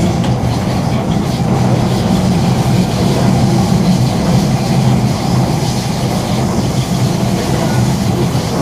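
Singapore MRT electric train running, heard from inside the carriage: a steady, even rumble of wheels on the rails and the traction motors.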